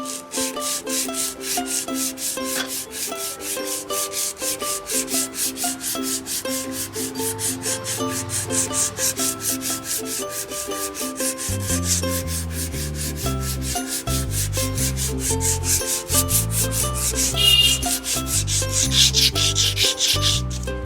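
Background music with a steady quick beat and a melody of held notes; a deep bass line comes in about halfway through.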